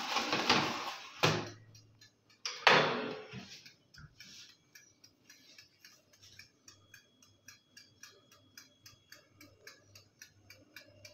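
A baking tray of cookie dough scraping onto an oven rack, with two metal clanks, the louder about three seconds in. Then a steady clock-like ticking, about four ticks a second.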